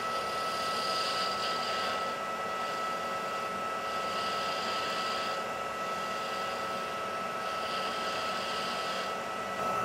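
Metal lathe running with a steady motor and gear whine while a cutting tool turns a taper on a stainless steel rifle muzzle brake. A higher cutting hiss swells and fades three times as the tool makes its passes.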